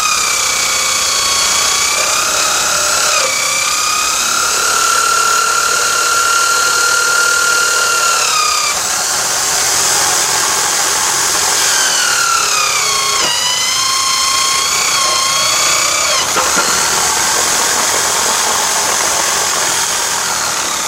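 Electric drill driving a homemade drum sander, its motor whining steadily; the pitch sags sharply a few times and then recovers.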